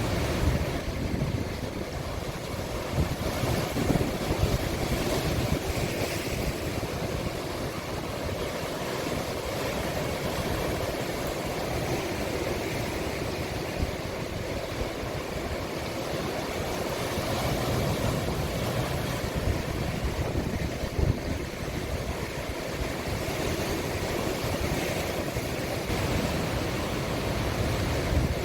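Sea waves breaking and washing in a cove: a steady rush of surf that swells and eases. Wind rumbles on the microphone throughout.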